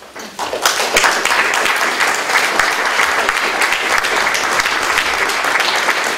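Audience applauding: many hands clapping together. It starts about half a second in, builds within the first second and keeps up steadily.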